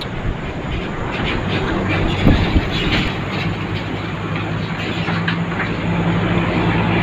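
Steady drone of heavy diesel engines with road traffic noise, growing a little louder in the second half, with a couple of sharp knocks about two seconds in.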